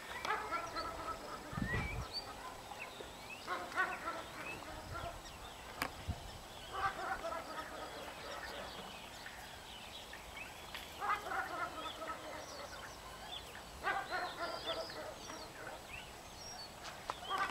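A turkey gobbling, a short burst of rapid rattling calls about six times, every three to four seconds.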